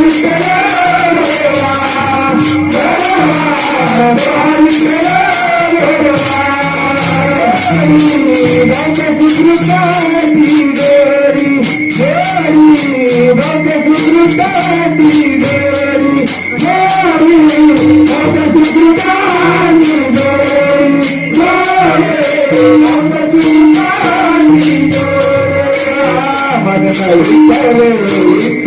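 Marathi bhajan gaulan: a male lead singer's gliding melody over steady held accompaniment tones, with jingling hand cymbals and drum keeping a regular beat.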